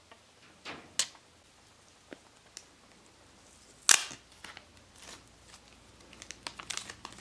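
Clear protective plastic film being peeled off a new GoPro Hero 9 Black: a few sharp crackles of the film, the loudest a little under four seconds in, then a quick flurry of small crackles near the end.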